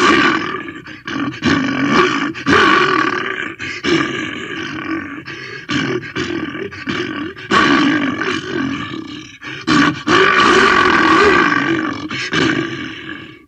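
Cartoon wolf-shark creature sound effects: a run of growls and roars, mostly short, with one held for about two seconds late on.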